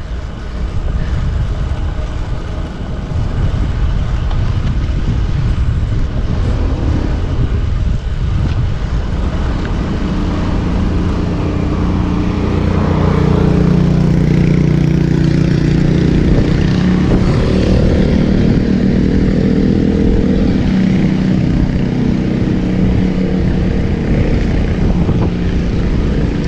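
Strong wind buffeting the microphone of a camera on a road bike riding into a headwind, a dense low rumble. From about halfway a steady low drone joins in.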